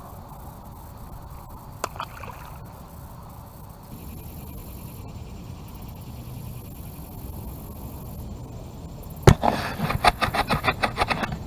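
Steady outdoor background noise with a single click about two seconds in. Near the end comes a sharp knock, followed by a quick run of clicks lasting about two seconds.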